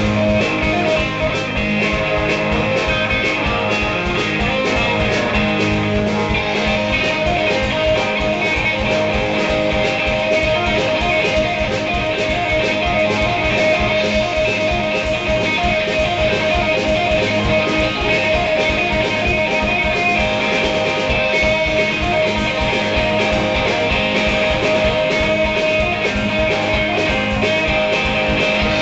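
Live band playing an instrumental stretch of a blues-rock song: guitar over a steady drum beat, with no singing.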